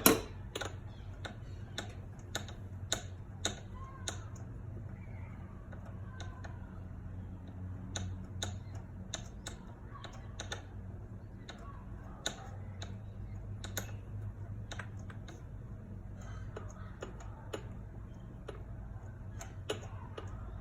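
Socket ratchet clicking in short irregular strokes while working a spark plug in its hole, with a loud knock at the very start and a low steady hum underneath.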